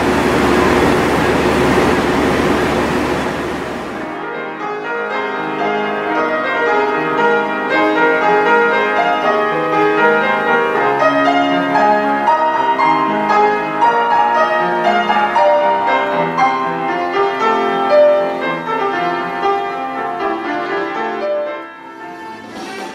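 A steady rushing noise for about four seconds, then a grand piano playing solo, with many separate notes over a wide range, fading near the end.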